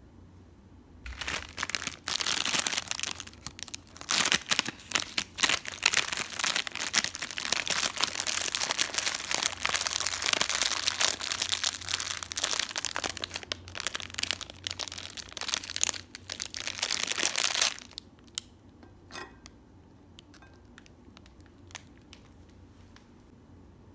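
Plastic wrapper of an Oreo cookie pack crinkling as it is opened and handled, for about sixteen seconds. Near the end it stops, followed by a few light taps.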